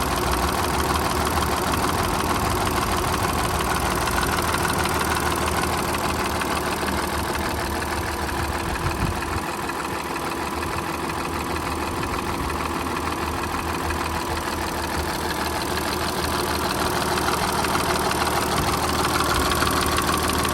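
Audi A7 engine idling steadily, with a noise from the left side of the engine that the owner wonders may be the timing chain.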